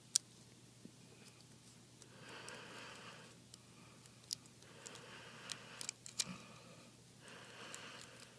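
Sharp small clicks and taps of tools and small parts being handled during an iPad repair, with soft rustling in between.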